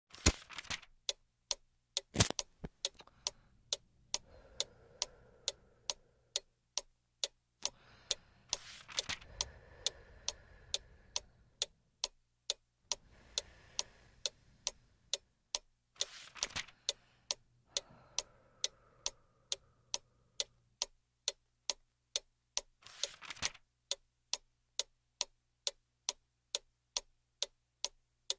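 A clock ticking steadily, about two ticks a second, with a few brief, louder rustling swishes at intervals.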